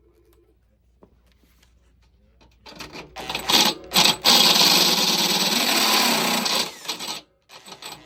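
Power drill turning a step drill bit into the vacuum power unit's housing to enlarge a mounting hole: a few short bursts, then a steady run of about two seconds before it stops.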